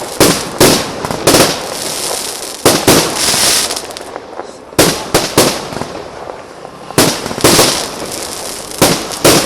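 Fireworks bursting in quick succession: sharp bangs come in clusters, each trailing into crackling. There is a brief lull about four seconds in, and a few more loud bangs follow toward the end.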